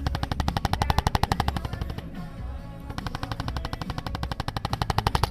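Rapid, even tapping, about a dozen sharp taps a second, with a short break about two seconds in, over background music.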